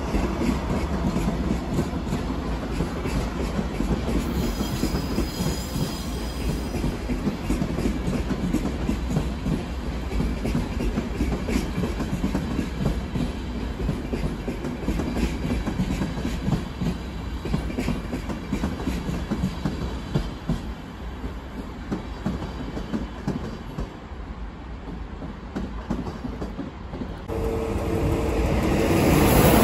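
A train of ÖBB Nightjet coaches rolling past: a steady rumble with wheels clacking over rail joints. From about three seconds before the end, a second train coming in on a nearer track grows louder.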